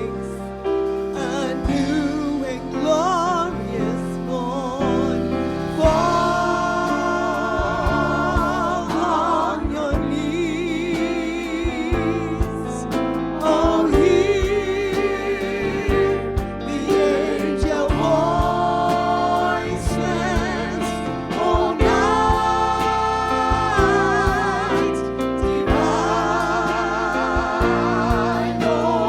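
Gospel-style Christmas music: singers hold long notes with wide vibrato over instrumental backing with a steady beat.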